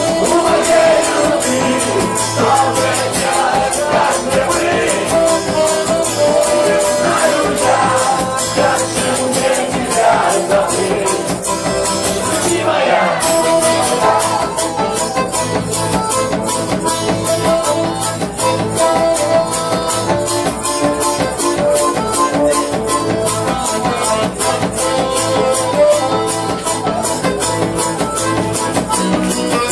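Live band playing an instrumental passage of a song with a steady beat between sung verses.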